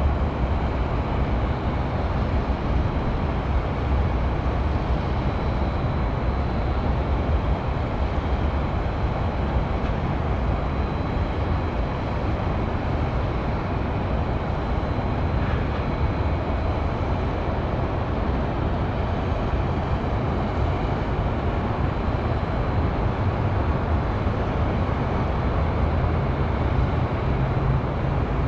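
Steady hum of highway traffic, an unbroken low rumble with no sudden events.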